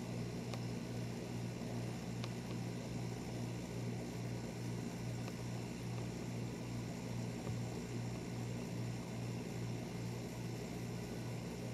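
Steady low electrical or machine hum of room tone, with two faint ticks about half a second and two seconds in.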